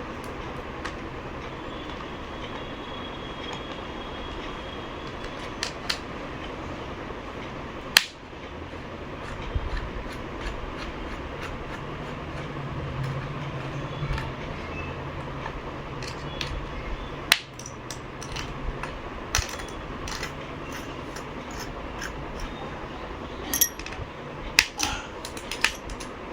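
Sharp clicks and taps of small tools and laptop parts being handled while the processor fan and heat sink are unscrewed and lifted out, two louder clicks well apart and a quick run of small clicks near the end, over a steady background hum.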